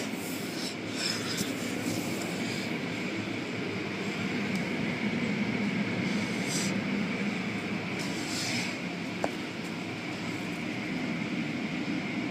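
Automatic car wash machinery running: a steady mechanical drone with a high whine over it, and a few brief hissing bursts, two of them around the middle.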